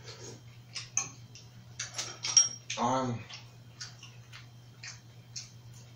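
Metal spoon and chopsticks clicking and clinking against ceramic bowls while eating, one sharper clink with a brief ring a little past two seconds in. A short vocal sound comes about three seconds in, over a steady low hum.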